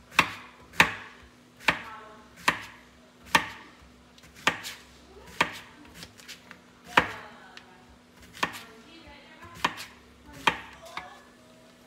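Chef's knife slicing a zucchini on a plastic cutting board: each cut ends in a sharp knock on the board, about one a second, and the cutting stops near the end.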